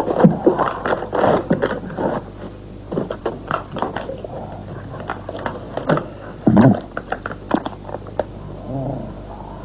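Plastic cling wrap crinkling and crackling in quick irregular bursts as it is peeled off a roast chicken in its tray. A louder low thud comes about two-thirds of the way through, and a short pitched sound near the end.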